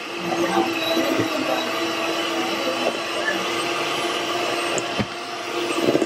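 Electric hand mixer running steadily at one speed, its beaters churning thick oatmeal cookie dough in a stainless steel bowl, with a steady motor whine and a sharp knock about five seconds in.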